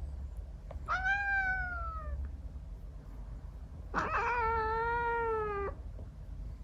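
A Scottish Fold × Persian mix cat meowing twice: a short call falling in pitch about a second in, then a longer, steadier meow from about four seconds in.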